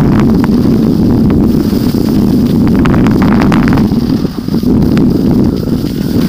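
Loud wind rush buffeting the microphone of a skier's action camera running downhill, with skis scraping over the packed snow, most clearly about three seconds in.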